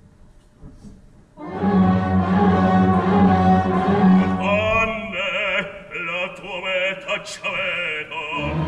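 Opera orchestra bursting in loud about a second and a half in with heavy low sustained notes, then a baritone voice singing with wide vibrato over the orchestra.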